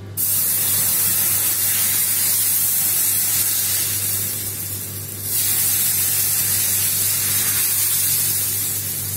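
Thin rice-flour dosa batter sizzling loudly as it is poured onto a hot tawa, starting suddenly. The sizzle eases about four seconds in and flares up again just after five seconds as more batter lands on the pan.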